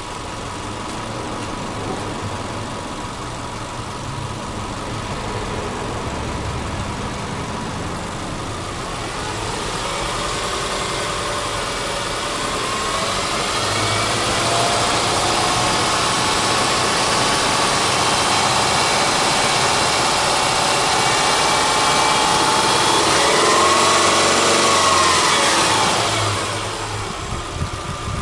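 Subaru Legacy Outback 2.5i's EJ25 flat-four engine heard at the open engine bay, idling and then revved. From about a third of the way in the engine speed climbs gradually and is held high, then falls back to idle near the end.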